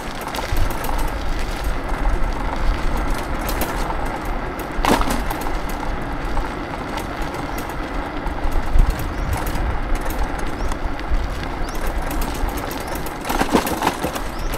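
Steady road and traffic noise with a heavy low rumble, heard while riding an electric scooter, with vehicles running nearby. A single sharp click about five seconds in.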